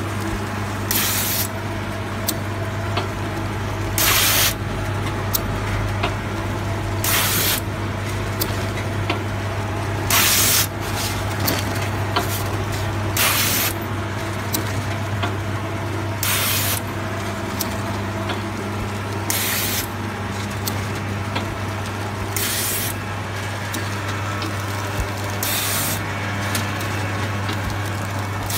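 Snack packaging machine running with a steady electrical hum and light clicking. A short burst of hiss comes about every three seconds, like compressed air released at each bag cycle.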